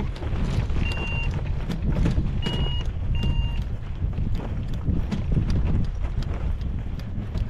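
Wind rumbling on a glider-mounted microphone over the repeated thud of a hang glider pilot's footsteps walking across grass. Three short, high, steady electronic beeps sound about a second, two and a half seconds and three seconds in.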